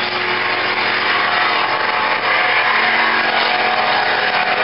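Engines of two race boats running at speed, a steady engine drone over the rush of water and spray.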